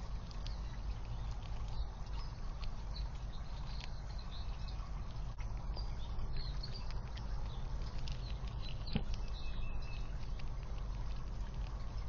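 Outdoor ambience with a steady low hum and faint, scattered chirps of small birds. A few sharp clicks stand out, one about two seconds in, one at four seconds and one near nine seconds.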